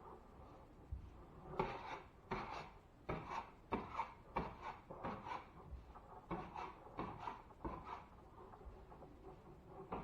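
A hand tool working the drywall: a quick series of short scraping strokes, about two to three a second, with a brief pause partway through.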